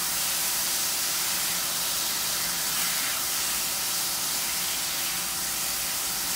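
Marinated beef strips sizzling in hot oil in a frying pan as they are stirred with a spatula: a steady frying hiss.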